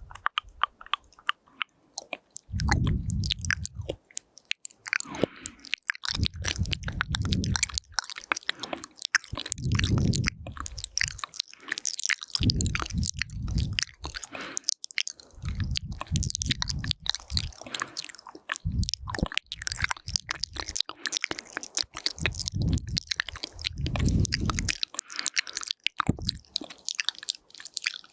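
Close-miked ASMR mouth sounds on a binaural microphone: quick, wet tongue clicks and lip smacks pattering continuously, with a muffled low swell about every three seconds.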